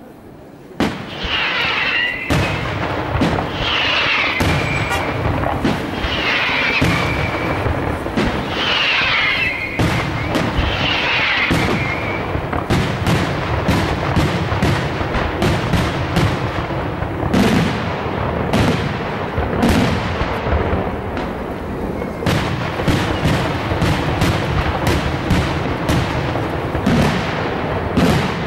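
Daytime aerial fireworks going off in a dense, continuous barrage of bangs and crackling that starts about a second in. In the first twelve seconds five whistles falling in pitch sound about two seconds apart over the bangs.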